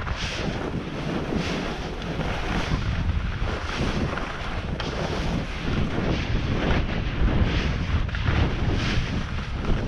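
Wind rushing over the microphone of a downhill skier, with skis scraping across hard, skied-out snow through a series of turns. The rush swells about once a second.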